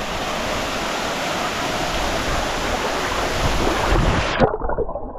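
Rushing water of a waterfall, a steady loud hiss, with low buffeting on the microphone from about three and a half seconds in. A little past four seconds the hiss suddenly turns muffled.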